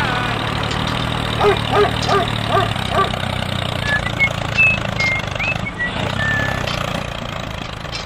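Tractor engine running steadily, a low drone. About a second and a half in come five quick chirps, followed in the middle by several thin whistling calls.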